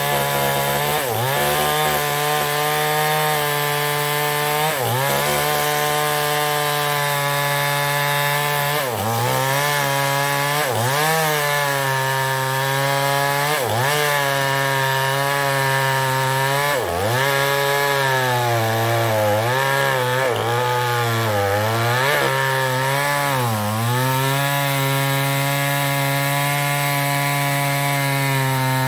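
Chinese-made two-stroke chainsaw running at high revs while cutting mahogany wood, its engine note dipping briefly and recovering about a dozen times, then holding steady near the end.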